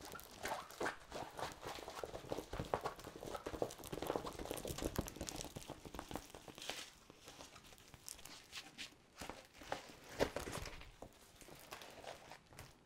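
Rolled diamond-painting canvas with its clear plastic cover film being unrolled and smoothed out by hand on a table: irregular rustling and crinkling of the plastic with small clicks, dying away near the end.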